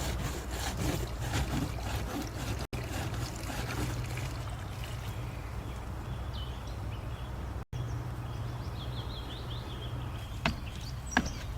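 Outdoor ambience of steady low rumble and hiss, with small birds chirping in the second half and a few sharp clicks near the end.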